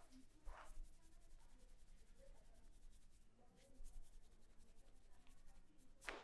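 Faint rubbing and soft scratching of hands on hair and scalp during a head massage, with a brief swish about half a second in and another near the end.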